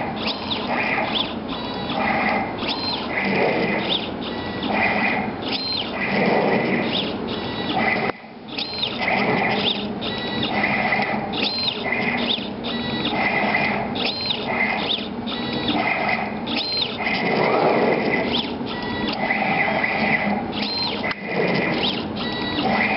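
CNC table's belt-driven gantry and head drive motors whining through a string of short moves, the pitch rising and falling with each start and stop as the pen traces small circles, with a brief pause about eight seconds in.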